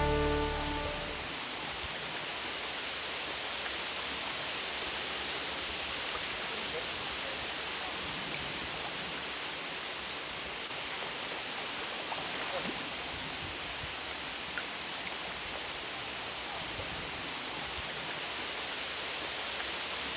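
Steady rushing noise of strong wind blowing over open water, with a brass-led music track fading out in the first second.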